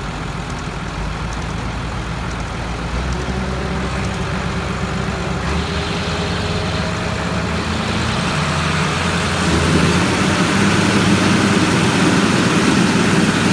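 Diesel engines of two large farm tractors, a Fiat 180-90 and a New Holland M160, straining under heavy load as they pull against each other on a chain. The engines grow steadily louder, fuller from about halfway through.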